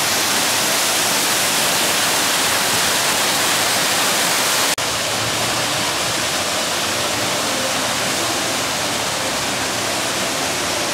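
Steady, loud rushing of water, with no tones or rhythm in it, broken off for an instant about five seconds in and then going on slightly quieter.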